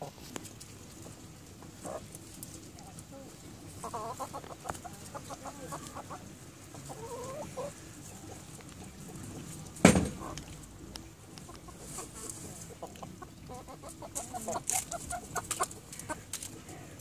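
A group of domestic hens clucking in short bursts as they peck at spinach leaves, with small pecking clicks throughout. One sharp knock about ten seconds in is the loudest sound.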